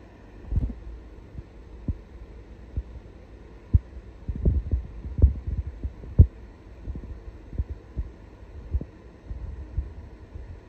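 Irregular low, dull thumps over a faint rumble, thickest and loudest in the middle stretch.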